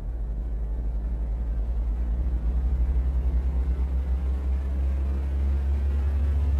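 Deep, steady low rumble from an animated intro's sound design. It swells slowly and cuts off suddenly at the end.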